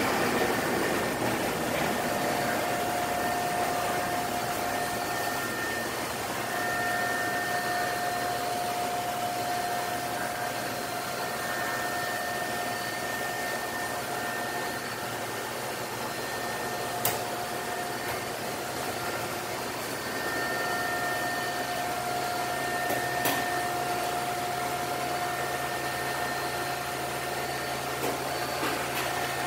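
Steady hum of running electric shop machinery with a constant mid-pitched whine and a fainter higher one. There are two short sharp clicks, one a little past halfway and one a few seconds later.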